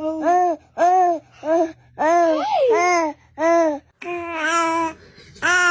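Baby babbling in a string of short, high-pitched sing-song syllables separated by brief pauses.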